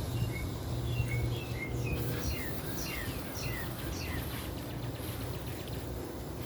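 A bird chirping: a quick series of about a dozen short, high, downward-sliding chirps that stops about four seconds in, over a steady low rumble.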